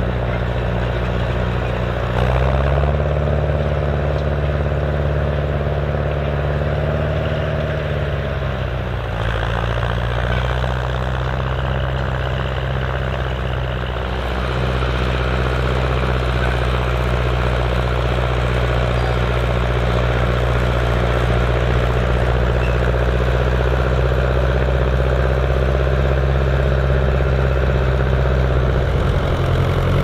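Massey Ferguson 35 tractor engine running steadily under load while pulling a four-furrow plough through the soil. Its note steps up about two seconds in and drops back around nine seconds.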